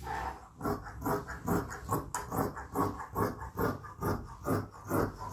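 Large tailor's scissors cutting through suit lining fabric in a steady run of snips, about three a second.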